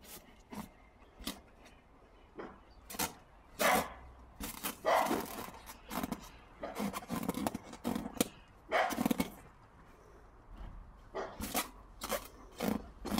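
A German Shepherd nosing and mouthing an inflated rubber balloon: irregular taps and rubbing of the balloon against its muzzle, with a few louder bursts along the way.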